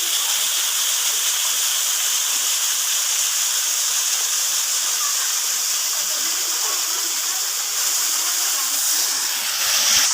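Waterfall rushing: a steady hiss of falling water, swelling slightly near the end.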